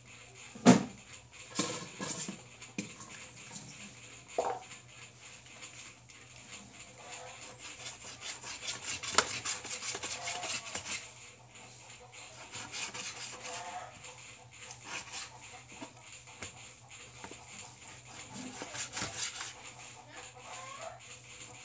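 Kitchen knife slicing raw pork on a cutting board: repeated short cuts and scrapes of the blade against the board, with a louder knock about a second in.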